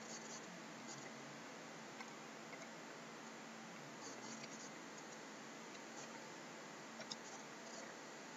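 Faint computer keyboard clicks from typing, scattered and sparse, with a small cluster about four seconds in and another near seven seconds. They sit over a steady low hiss and a faint hum.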